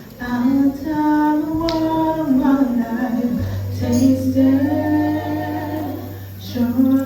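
A woman singing a gospel song, holding long notes, with a low steady bass note coming in under her voice about halfway through.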